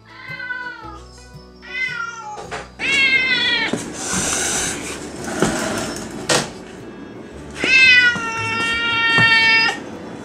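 Domestic tabby cat meowing repeatedly: four meows, each falling in pitch, the last and longest drawn out for about two seconds. A short rush of hissy noise comes between the third and fourth meows, followed by a sharp click, over faint background music.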